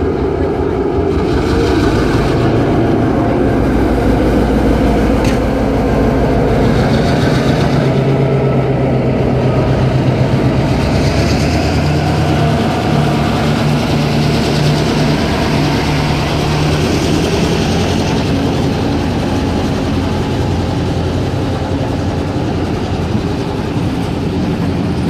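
NSWGR 42 class diesel locomotive 42103, its EMD V16 two-stroke engine running as it moves slowly past, the engine note rising a little midway. The engine then fades as the heritage carriages roll by behind it.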